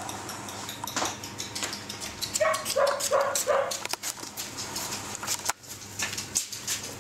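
Rough collie puppies giving a quick run of short, high yips about two and a half seconds in, amid the clicking patter of paws and claws on a tiled floor.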